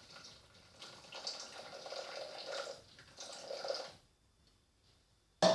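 Cold water being poured into a Thermomix TM31 mixing bowl in uneven splashing pours that stop about four seconds in. A single sharp knock near the end.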